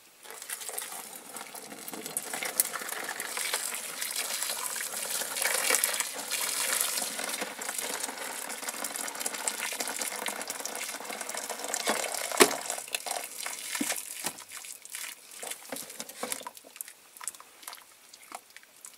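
Boiling water being poured into a container for a caustic soda paint-stripping bath: a steady gushing pour that thins out after about twelve seconds, with a sharp knock then and scattered clicks after.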